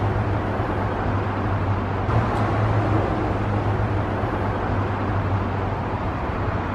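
Steady road traffic noise with a low engine hum running under it.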